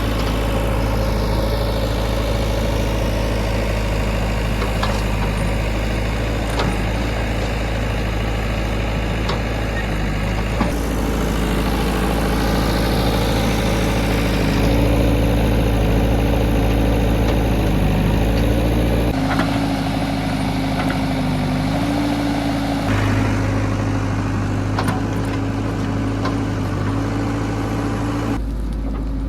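Heavy diesel engines of a JCB 3DX backhoe loader and tractors running steadily; the engine tone shifts abruptly a few times.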